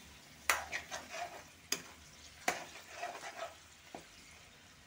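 A spatula stirring chicken hearts frying in oil in a metal kadai: three sharp clacks of the spatula against the pan, about half a second, a second and three quarters, and two and a half seconds in, with scraping strokes between and a lighter tap near the end, over a faint sizzle.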